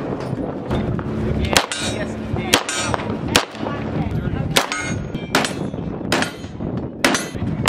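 Single gunshots from rifles and a compact H&K firing in turn, roughly one a second, with some louder and some fainter, each cracking sharply and ringing briefly.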